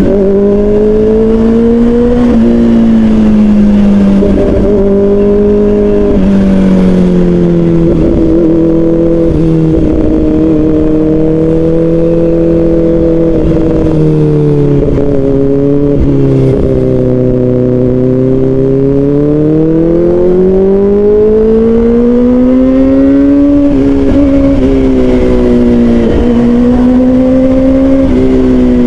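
Inline-four engine of a 2024 Kawasaki Ninja ZX-4RR breathing through an Austin Racing aftermarket muffler, heard from the rider's seat while riding. The engine note rises and falls with the throttle, sags to a low pitch around the middle, then climbs steadily as the bike accelerates near the end.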